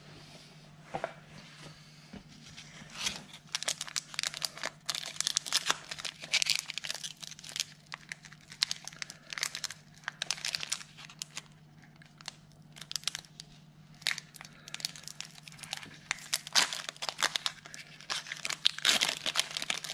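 A Pokémon card booster pack's foil wrapper crinkling and tearing as it is pulled open by hand, in irregular bursts of crackling that grow busier a few seconds in.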